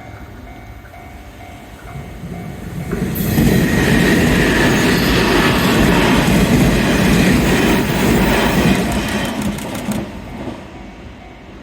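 Nishitetsu limited-express electric train passing at speed. The run swells about three seconds in, stays loud with wheels clattering over the rail joints, and drops away about ten seconds in.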